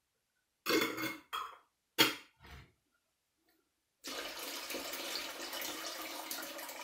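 A few short knocks as a jar is handled, then, about four seconds in, a steady stream of water pouring from a litre glass jar of tomatoes into a metal pot. This is the hot water the jars were warmed in, being drained off to be boiled into brine.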